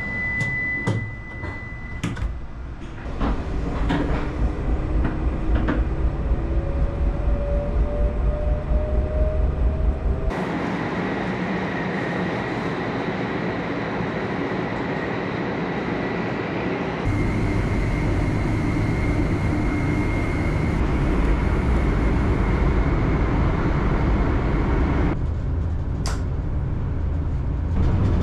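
Hokuriku Shinkansen train heard from inside the car: a steady high warning tone and clunks as the sliding door shuts, then the traction motors' whine rising slowly in pitch as the train pulls away from the station. After that comes the steady rumble and rush of the train running at speed, changing abruptly in tone a few times.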